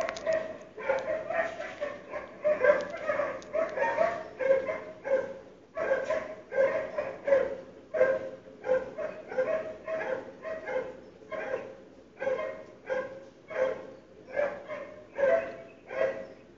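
Dog barking nonstop in a steady rhythm of about two barks a second, with no let-up.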